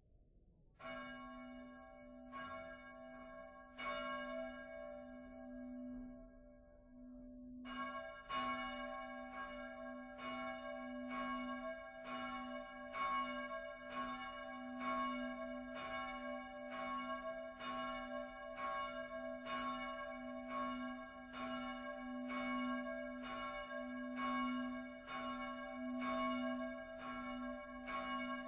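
The Utrecht Dom tower's swinging church bells starting up for the full peal. A few widely spaced strokes come in the first seconds, then from about eight seconds in a steady run of strokes about one a second, each ringing on under the next.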